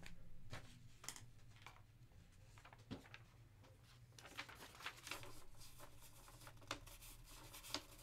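Faint rustling and light clicks of a printed paper sheet being handled, busier from about halfway through.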